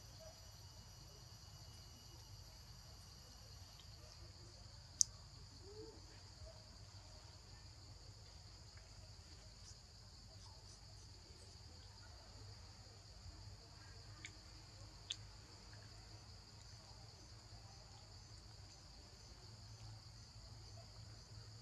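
Faint, steady high drone of forest insects over a low rumble, with a few sharp clicks: the loudest about five seconds in, and two more around fourteen to fifteen seconds in.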